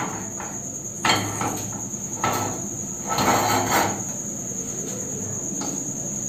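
A steady high-pitched insect trill runs throughout. Over it come a few knocks and clatters of a small pan on a gas stove's burner grate, about a second in, near two seconds and around three seconds.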